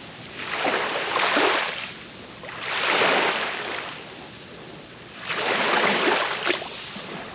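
Waves washing in: three surges of rushing water, each about a second and a half long, swelling and falling away.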